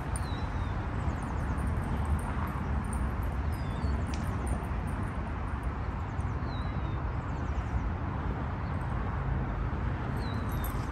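Steady low outdoor rumble, with a small bird's short falling chirp repeating four times, about three seconds apart.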